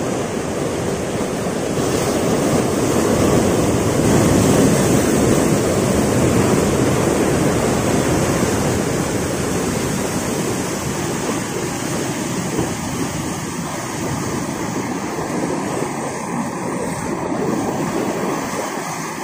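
Ocean surf surging and breaking over rocks, a continuous rush of white water that is loudest a few seconds in and eases slightly toward the end. The sea is fairly rough.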